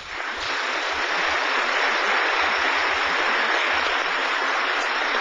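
Audience applauding in a hall. It builds up over the first second and then holds steady.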